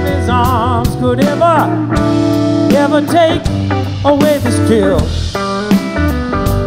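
Live blues-rock band playing: an electric guitar lead with bent, wavering notes over bass and a drum kit with steady cymbal strokes.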